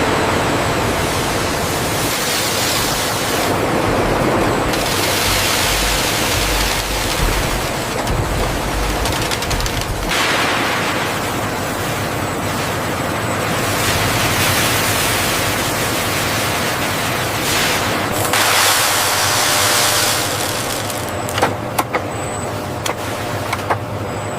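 Loud, steady rushing noise of industrial machinery running, its tone shifting abruptly every several seconds, with a few sharp clicks near the end.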